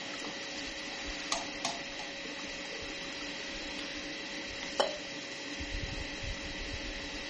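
Washing in a bowl by hand: a few sharp clinks of a mug or utensil against the containers, two close together early and the loudest just before the middle, then hands swishing through the wet contents. A steady hiss runs underneath.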